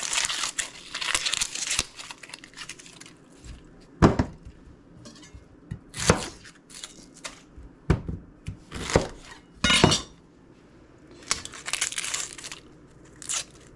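Dry, papery yellow-onion skin crackling and tearing as it is peeled by hand. Through the middle come a few sharp knocks of a chef's knife cutting through the onion onto a plastic cutting board.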